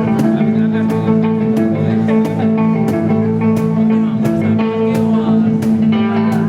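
Background music led by guitar over sustained held notes, with a steady beat of about three hits every two seconds.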